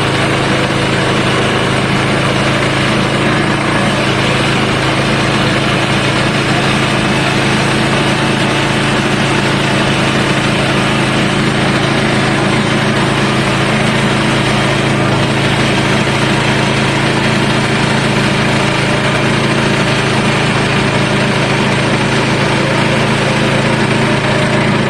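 Sawmill engine running steadily while milling a southern rata log, with no change in its note.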